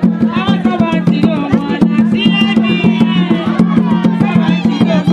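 Live traditional drumming on tall wooden hand drums, a fast, even beat, with women's voices singing over it; the singing drops out near the end while the drums carry on.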